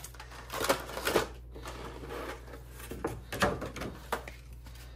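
Thin clear plastic blister packaging of a toy action figure crackling and clicking as it is handled and lifted free of its cardboard backing, in short irregular bursts.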